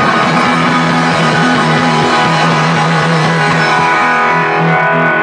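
Live rock band playing loud electric guitars and bass, the chords held and ringing out.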